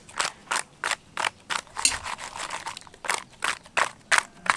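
Whole climbing perch coated in salt and turmeric tossed about in a woven basket, the fish knocking and sliding against the wicker in a rhythmic shake of about three strokes a second.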